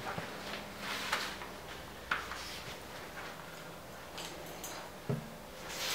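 A few faint clicks and light knocks of a small steel tube practice piece and its magnetic clamp being handled and turned over on a concrete floor. There is no welding arc. A slightly heavier knock comes near the end.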